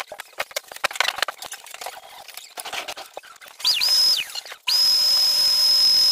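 Rustling and light knocks, then a handheld power tool's electric motor spins up to a high whine, runs for about half a second and winds down. About a second later it starts again and runs steadily with a high whine and hiss.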